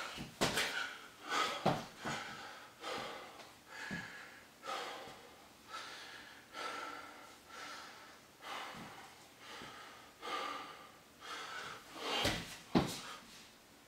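A man panting hard from burpees, loud breaths in and out about one to two a second. At the start and again about twelve seconds in, a few sharp thumps of hands and feet on a wooden floor as he drops into a burpee.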